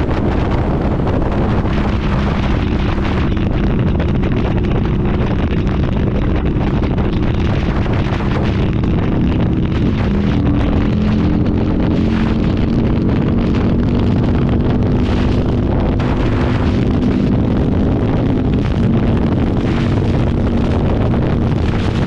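Harley-Davidson V-Rod's liquid-cooled V-twin running at steady highway speed, heard from on the bike, with wind buffeting the microphone. The engine note shifts a little about halfway through.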